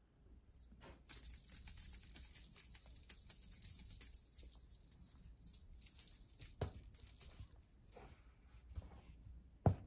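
Small bell on a cat's wand toy jingling steadily as the toy is waved about, starting about a second in and fading out a couple of seconds before the end. Two sharp knocks break in, the louder one just before the end.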